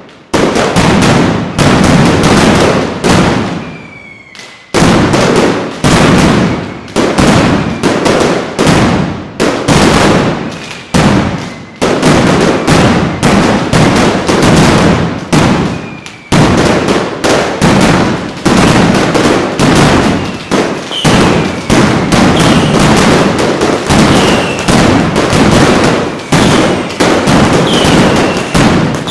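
Mascletà firecrackers going off in dense, rapid volleys of sharp bangs that come in waves, with a brief lull about four seconds in. Short whistles falling in pitch cut through the bangs, mostly in the second half.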